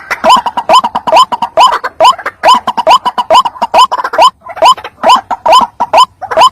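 White-breasted waterhen (ruak-ruak) calling over and over, about two short rising notes a second in a steady run, as played for a bird-trapping lure.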